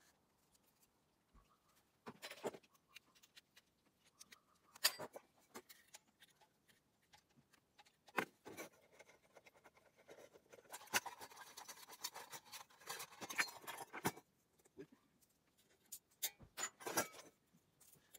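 Metal parts of a brass table lamp clinking and knocking as it is taken apart by hand, with a few seconds of scraping and rattling in the middle as the lamp's stem is twisted loose.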